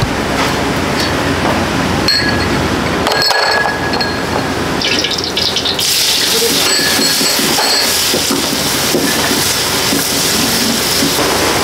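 Restaurant kitchen cooking sounds: metal utensils clink with a short ringing tone twice, a few seconds in, then a loud steady hiss sets in from about halfway through.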